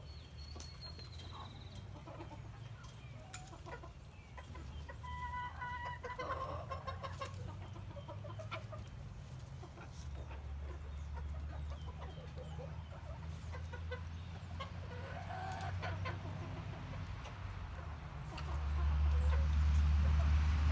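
A flock of chickens clucking, with scattered short calls. A low rumble runs underneath and grows louder near the end.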